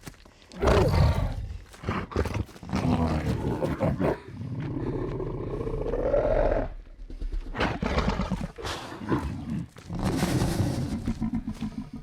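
A werewolf creature roaring and growling in several loud calls, with short pauses between them; one long growl about four to six seconds in rises in pitch.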